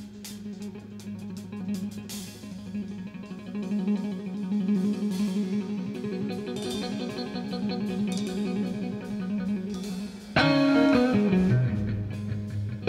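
Electric guitar played solo in a live rock improvisation, holding a quiet, wavering note. About ten seconds in, a sudden loud, dense guitar phrase breaks in.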